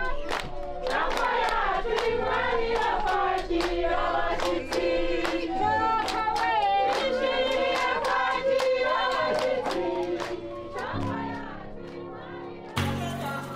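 A group of Rwandan women singing together to steady hand-clapping. Near the end the singing gives way to a lower plucked string sound.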